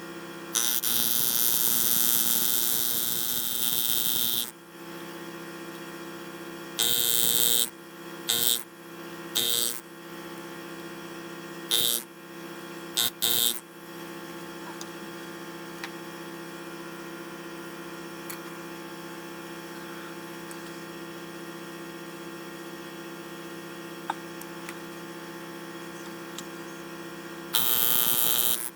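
Engraving tool working in bursts of loud hissing noise, the longest about four seconds near the start, then several short ones and a last one near the end, over a steady electrical hum.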